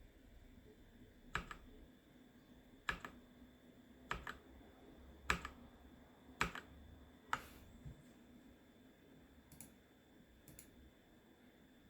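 SPC Gear GK650K Omnis mechanical keyboard with Kailh switches: single keys pressed one at a time, roughly one a second, each a sharp click. The last two, near the end, are fainter.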